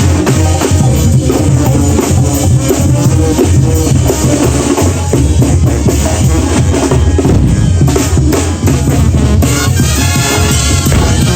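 Two Mexican brass bandas playing together, with a loud, steady drum beat under the band.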